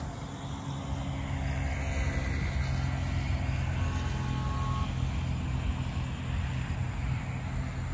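A low, steady engine rumble, swelling about a second in and holding.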